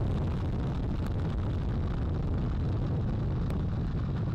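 NASA Space Launch System rocket's two solid rocket boosters and four RS-25 core-stage engines firing seconds after liftoff, a loud, steady, deep rumble as the vehicle climbs.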